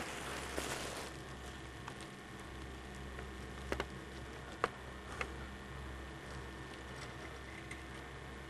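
Quiet camcorder-recorded ambience: a steady low hum, a short hiss in the first second, then a few small sharp clicks or taps around the middle.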